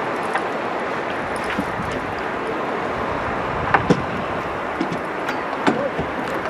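Steady wind and sea noise on a yacht's deck at night, with a couple of light knocks about two-thirds of the way in and near the end as a small fish is reeled up on the line.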